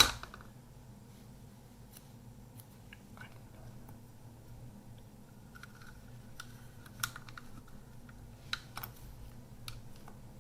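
Faint clicks, taps and rustles of a small plastic film camera and sticky tape being handled at close range, with a few sharper ticks in the second half.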